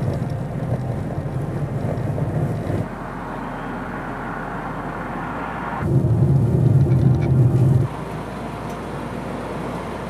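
Car road noise, a low rumble, in several short clips cut together, heard from inside a car driving on a snow-covered road. The rumble drops away abruptly about three seconds in, comes back louder around six seconds and drops again about two seconds later.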